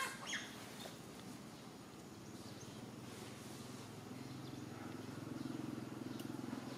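Faint outdoor background with a low, steady hum that grows louder in the second half and eases off near the end.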